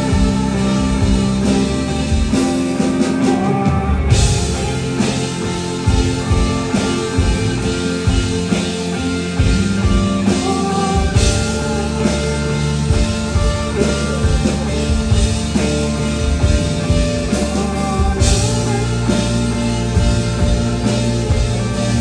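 Live rock band music: a male singer's voice over a semi-hollow electric guitar and a drum kit, with crash cymbals coming in three times, about seven seconds apart.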